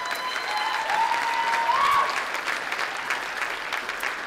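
Audience applauding, with a voice or two whooping in the first couple of seconds.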